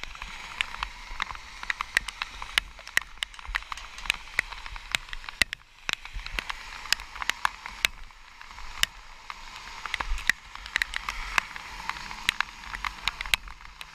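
Raindrops striking the camera housing in many irregular sharp ticks, over a steady hiss of rain.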